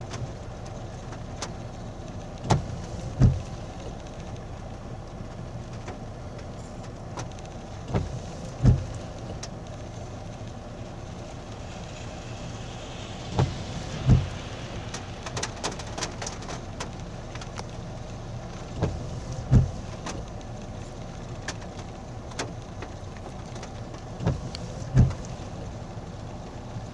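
Steady rain over a low hum, broken by a pair of dull thumps about every five and a half seconds.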